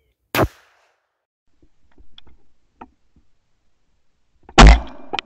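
Shotgun fired: one shot about half a second in, sharp but moderate. Near the end comes a much louder shot with a heavy low thump, picked up by a camera mounted on the gun itself, followed by a quick click. Faint small clicks come between the two shots.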